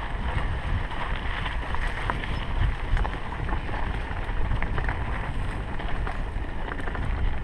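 Wind rumbling on a handlebar-mounted action camera's microphone as a mountain bike rolls along a dirt singletrack, with tyre noise and scattered clicks and knocks from the bike over the bumps.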